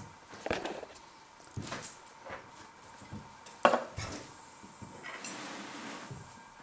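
Metal cutlery clinking and a ceramic bowl knocking on a countertop: several separate clinks and knocks, the loudest about three and a half seconds in, followed by a couple of seconds of soft hiss.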